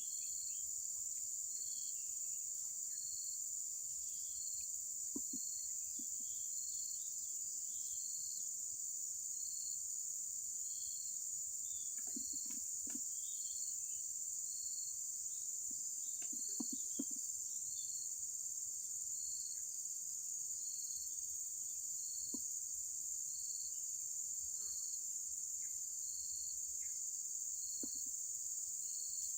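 A steady, high-pitched chorus of insects such as crickets, with a short repeated chirp about once a second, and a few faint knocks here and there.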